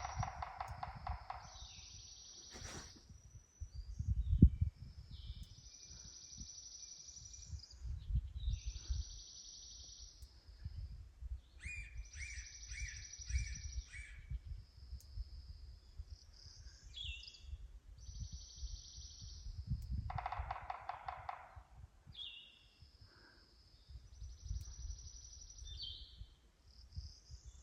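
Forest songbirds singing: one repeats a high trill lasting a second or two every few seconds, with other chirps and calls mixed in. Low, irregular thuds of footsteps climbing a muddy trail run underneath, the heaviest about four seconds in.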